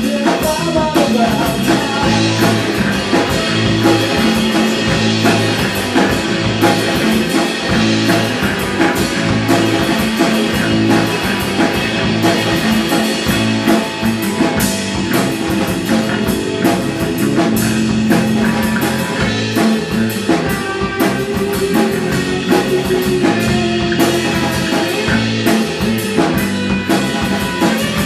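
A live rock band playing: a drum kit keeping a steady beat with cymbals, under amplified electric guitars.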